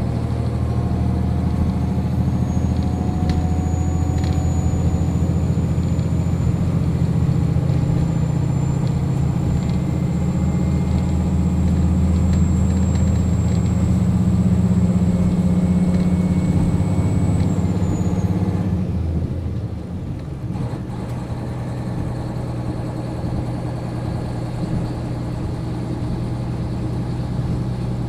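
JR Hokkaido KiHa 40 diesel railcar's engine idling steadily while the car stands still. About two-thirds of the way through, a high whine glides down and stops and the low drone drops back, then the idling continues a little quieter.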